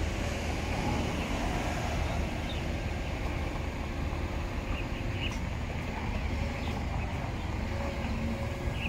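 Truck diesel engine running at a steady low idle-like hum while a small Isuzu garbage compactor truck is driven slowly up onto a tilted flatbed.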